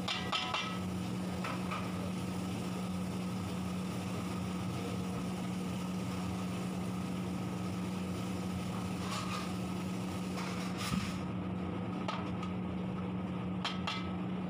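Steady mechanical hum of kitchen equipment, with a low tone held throughout. A few brief clinks and scrapes come as plates of ground spices are tipped into a large kadhai: one at the start and a few near the end.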